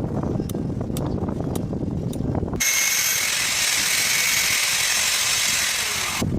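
Power tool at work: a low rumble with a few sharp clicks, then a sudden switch to a loud high hiss with a steady whine for about three and a half seconds, which stops abruptly.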